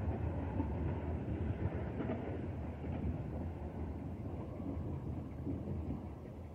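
Freight train in a rail yard: a steady low rumble of wagons and diesel locomotive, easing slightly near the end.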